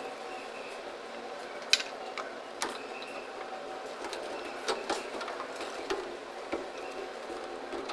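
Irregular clicks and knocks of hands handling orange PVC sanitary pipe and fittings, the sharpest about two seconds in, over steady background noise.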